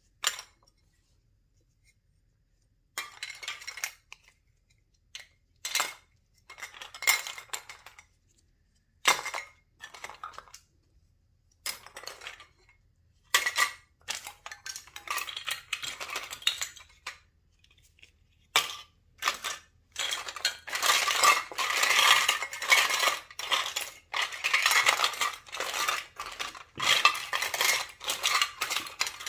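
Small plastic toy dishes, utensils and doll furniture clattering and clinking against each other as hands rummage through a pile of them. Short separate bursts at first, then a near-continuous rattle through the last third.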